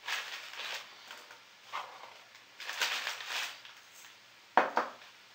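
Himalayan salt crystals being crushed in a hand salt mill: several short gritty crunching bursts, then a sharp knock about four and a half seconds in.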